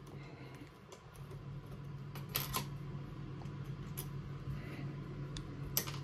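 Allen key clicking against small steel M3 bolts and an aluminium engine block as the bolts are nipped up by hand. There are a few faint sharp clicks and taps, the clearest about halfway through and near the end, over a low steady hum.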